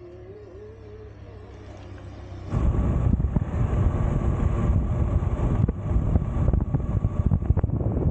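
Wind rushing over the microphone of a camera held by a pillion rider on a moving motorcycle, with the ride's road and engine noise underneath. It starts suddenly about two and a half seconds in, after a quieter stretch, and stays loud and rough.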